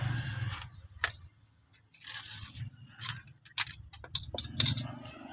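Scattered metallic clicks and short scrapes as an angle grinder's cutting disc is taken off its spindle, with a low hum dying away in the first half second.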